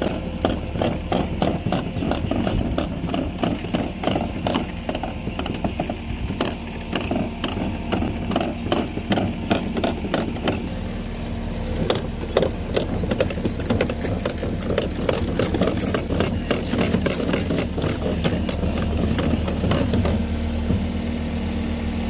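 Case TV450 compact track loader travelling with a loaded pallet on its forks: the diesel engine runs steadily under a rapid rattling clatter from the rubber tracks and undercarriage.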